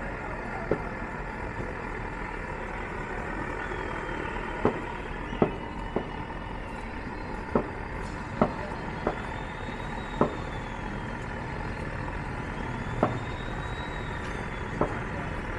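Steady street traffic noise, with about ten sharp, irregular clicks and taps from a knife working on a buffalo trotter as its hide is cut away.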